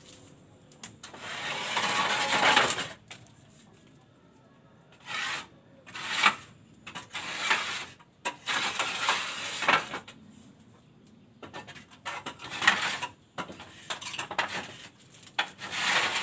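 Clay roof tiles scraping and clinking against each other and the bamboo battens as they are shifted by hand, in irregular bursts a second or two long with short sharp clicks between quiet gaps.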